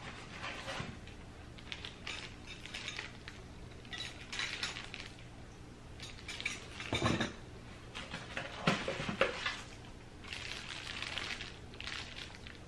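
Clear plastic packaging rustling and crinkling as an item is handled and unwrapped, with scattered light clinks and a few soft knocks.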